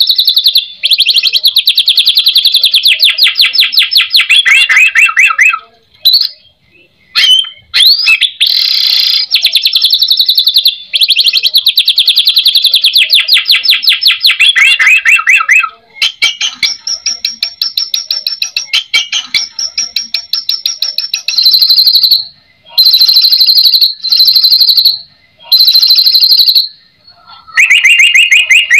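White-rumped shama (murai batu) singing loudly: long runs of very fast repeated notes and trills, broken by a gap about six seconds in, then a string of shorter high trilled bursts with brief pauses near the end. The song is packed with mimicked phrases of other birds (isian).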